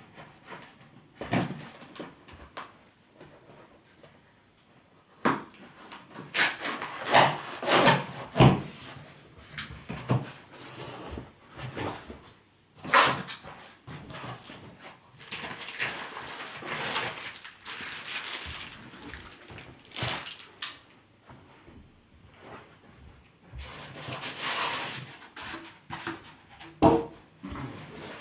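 TV packaging being handled during unboxing: irregular rustling, scraping and rubbing with a few sharp knocks, coming in bursts.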